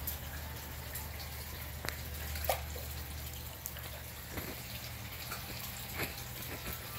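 Koi pond water splashing and dripping in small irregular bursts over a steady low hum.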